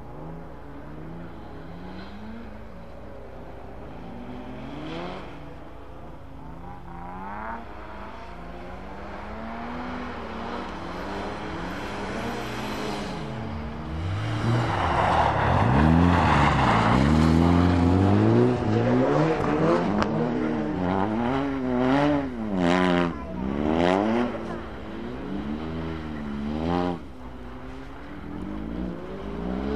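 Rally car engine revving up and down through gear changes, growing louder as it approaches and loudest about halfway through, with quick rises and falls in revs after that.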